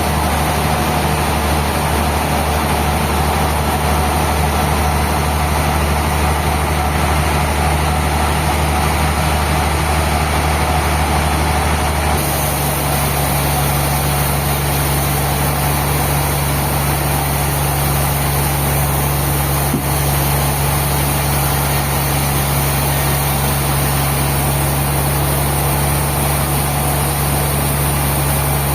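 Sawmill machinery running steadily with a constant engine hum, its tone changing abruptly about twelve seconds in.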